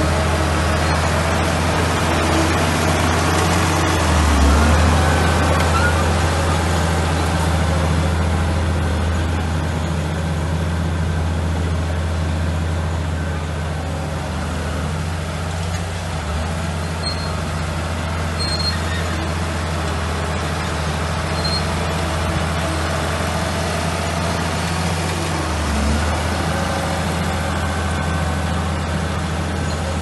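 Diesel engine of a crawler bulldozer running steadily under load as it pushes and spreads sand, its low hum swelling briefly about four seconds in and again near the end.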